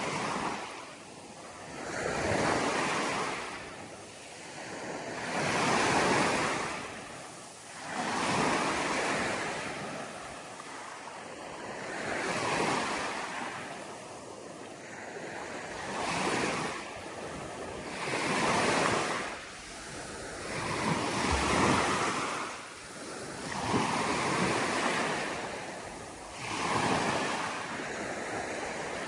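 Ocean surf washing in, a rush of water that swells and falls away every few seconds.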